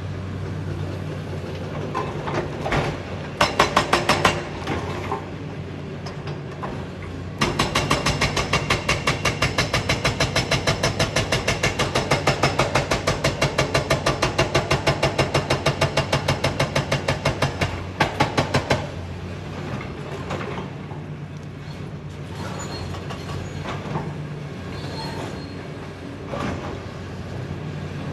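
Excavator's hydraulic rock breaker hammering rock in rapid, even blows: a short burst about three and a half seconds in, then a long run from about seven seconds to about nineteen seconds. Underneath, the excavator's diesel engine drones steadily and carries on alone after the hammering stops.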